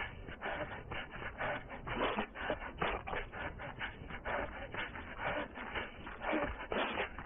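A runner's quick footsteps on a dirt and grass track, about three to four a second, mixed with rough, hard breathing, heard close up from a head-mounted camera.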